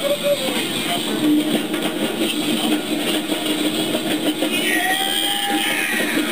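Background music over the machinery noise of an excavator working an Eco-Crusher jaw crusher bucket, crushing concrete.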